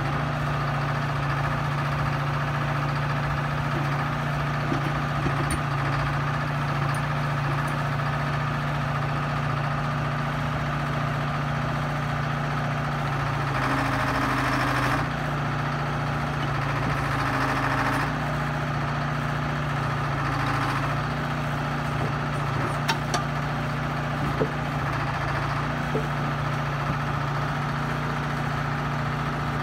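Diesel excavator engine idling steadily. Its note shifts and grows a little louder twice near the middle, and there are a few sharp clanks in the second half.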